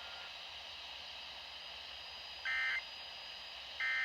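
Emergency Alert System end-of-message data bursts: two short buzzy digital chirps of the SAME code, about 1.3 s apart, halfway through and at the very end, marking the close of the tornado warning broadcast. Faint radio hiss lies underneath.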